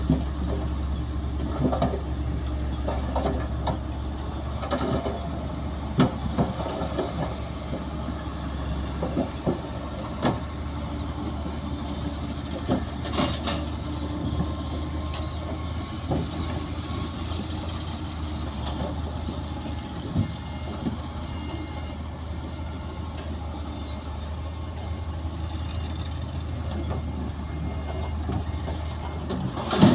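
Komatsu D60P bulldozer's diesel engine running steadily at work, with scattered sharp metallic clanks and knocks from the machine.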